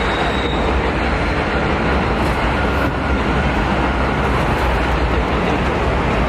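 Loud, steady roar of city street traffic with a deep rumble underneath.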